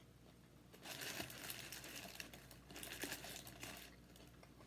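Paper burger wrapper crinkling as it is handled, in two stretches: the first begins about a second in, the second stops just before four seconds.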